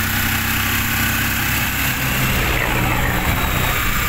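Engine of the vehicle being ridden in, running steadily under road and wind noise, heard from inside the vehicle; the engine note shifts about two seconds in.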